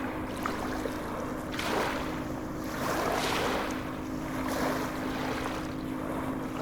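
Sea waves washing and surging in repeated swells, with a steady low hum underneath.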